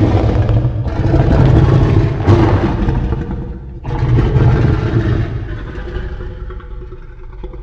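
Loud, dense rumbling monster sound effect with a mechanical, engine-like quality. A sharp new surge starts about four seconds in, and the sound eases off near the end.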